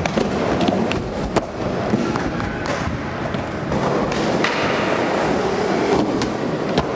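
Skateboard wheels rolling on a smooth concrete floor, broken by several sharp clacks of the board striking the ground and ramps.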